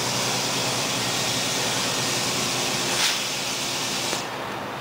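Scania 124L truck on the move, heard from inside the cab: a steady rush of wind and road noise over the low hum of its straight-six diesel. A short louder hiss comes about three seconds in, and the high rushing drops away suddenly near the end.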